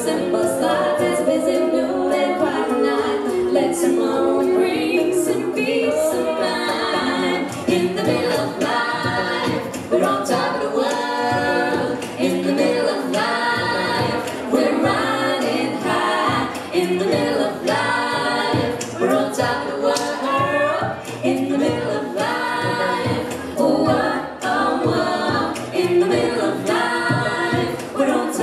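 Mixed a cappella group of three women and three men singing a song in close harmony through microphones and a PA, with no instruments.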